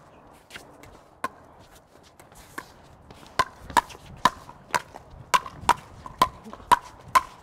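Pickleball rally: paddles striking a plastic pickleball in sharp hits. A few hits are spread out at first, then comes a quick exchange of about two hits a second, typical of players trading dinks and volleys at the net.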